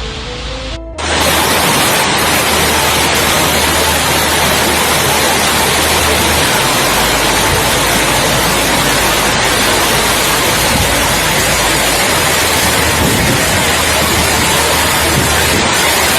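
Torrential rain pouring down, a loud, steady, even hiss that cuts in suddenly about a second in.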